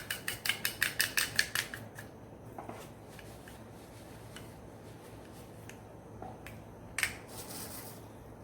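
Carbon being scraped off the piston of a 49cc two-stroke engine: quick rasping strokes, about six a second, that stop about two seconds in. Faint handling clicks and one brief scrape follow near the end.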